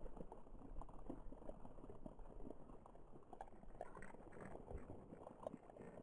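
Faint, irregular crackling and soft ticking over a steady low hum, as picked up by a sensitive hydrophone in a pond-water sample, an attempt to hear the microbes' cilia and flagella.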